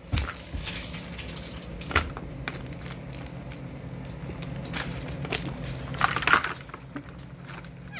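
Plastic toy packaging being handled and opened: scattered crinkles and clicks, loudest about two seconds in and again around six seconds, over a steady low hum.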